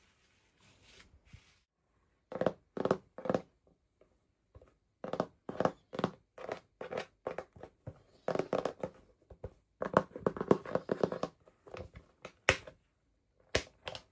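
Toy packaging being torn open and handled by hand: a run of short tearing and crinkling strokes, with two sharp clicks near the end.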